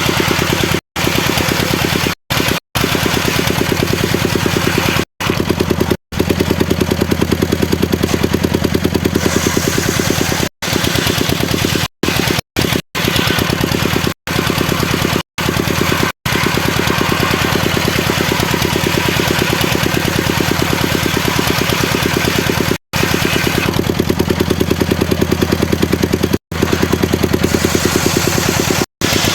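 Engine of a homemade circular sawmill running steadily with an even pulsing beat, broken by many brief, sudden silences.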